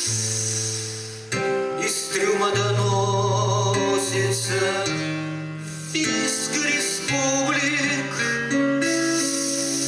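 A man singing a song in Russian to his own acoustic guitar accompaniment, his voice wavering with vibrato on held notes, with short breaks between phrases.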